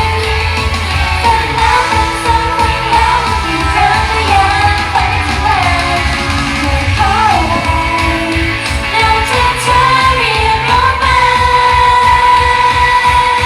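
Loud Thai pop song with female singing over a steady driving beat, as played for a live idol dance performance.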